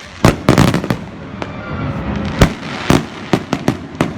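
Fireworks bursting overhead: a rapid string of sharp bangs and cracks, about ten over four seconds, clustered just after the start and then spaced out, with the loudest bangs about half a second, two and a half and three seconds in.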